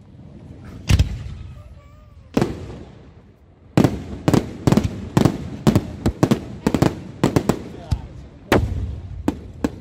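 Fireworks display: aerial shells bursting with sharp bangs. There is a single bang about a second in and another after two seconds, then a rapid string of bangs in the middle, and a few more near the end.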